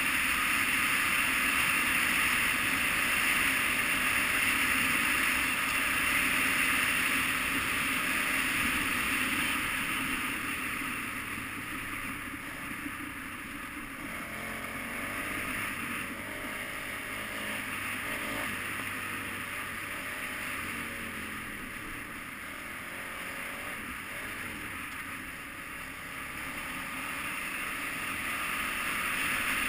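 KTM 990 Adventure's V-twin engine running on the move over a dirt track, under heavy wind rush on the microphone. The wind eases about a third of the way in, leaving the engine's rising and falling pitch easier to hear, and builds again near the end.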